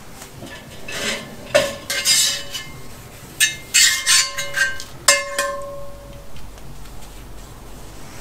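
Metal tongs clinking and scraping against a cast iron skillet on a grill grate as oil is wiped onto the hot pan with a rag, the pan being seasoned. A handful of sharp metal clinks, mostly in the middle, some ringing briefly.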